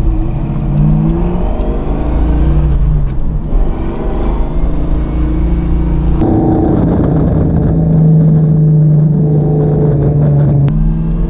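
A 1969 Camaro's big-block V8 exhaust as the car pulls away and accelerates, the engine note rising in pitch. About six seconds in it settles into a steady drone at cruising speed.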